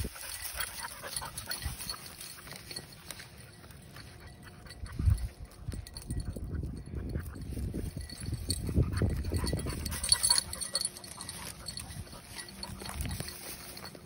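Footsteps swishing and crunching through tall, dry grass, with irregular crackles. Low rumbles swell up about five seconds in and again from about eight to ten seconds.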